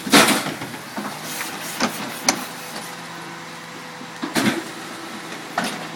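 Loadmaster rear-loading garbage truck's cart tipper banging a raised wheeled trash cart to shake its load into the hopper: a loud clunk at the start, then several more knocks, over the truck's steady engine hum.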